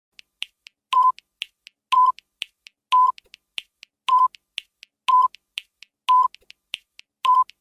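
Quiz countdown timer sound effect: fast clock-like ticking, about four ticks a second, with a short electronic beep on each full second from about a second in.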